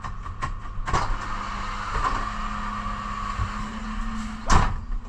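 Refuse truck engine running steadily, heard inside the cab as the truck moves slowly, with a hiss through the middle and a few sharp clunks, the loudest near the end.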